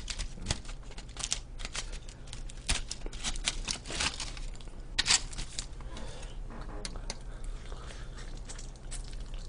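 Chopsticks picking at a grilled mackerel on aluminium foil: a string of sharp clicks and foil crinkles, thinning out after about six seconds.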